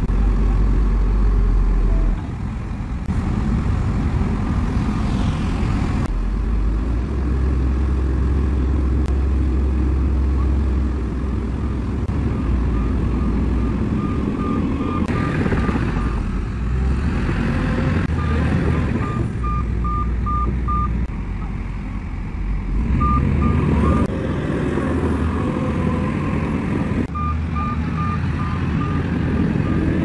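Shantui crawler bulldozer's diesel engine running as it works, with a machine's reversing alarm beeping in spells of a few seconds, about three beeps a second, starting about halfway through.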